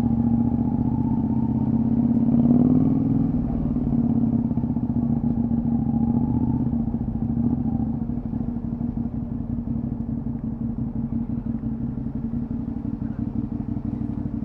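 Honda VTR250 V-twin running through a Moriwaki full exhaust system, with a brief rise in revs two to three seconds in, then settling to a steady, slightly quieter run from about eight seconds.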